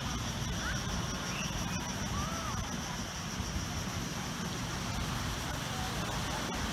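Steady outdoor ambience: a continuous low rumble, with a faint steady high-pitched hum and a few faint short chirps over it.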